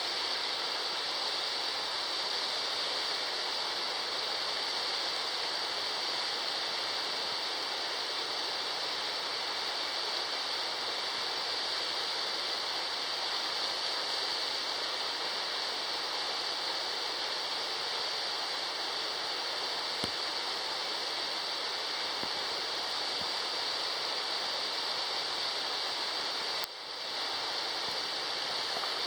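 Waterfall rushing: a steady, even roar of falling water, with one brief dip in level near the end.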